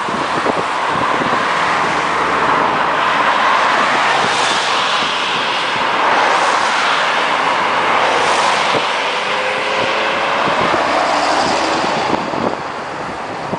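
Airbus A320-232's IAE V2500 jet engines on final approach: a steady rushing roar that swells about a second in and eases near the end as the airliner passes low toward the runway, mixed with cars passing on the road close by.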